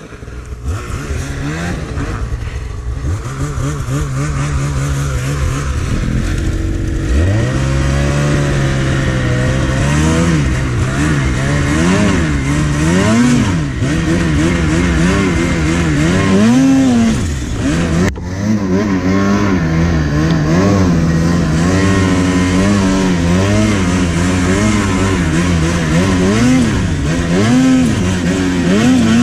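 Snowmobile engine running steadily, then from about seven seconds in revving up and down again and again as the sled ploughs through deep powder snow.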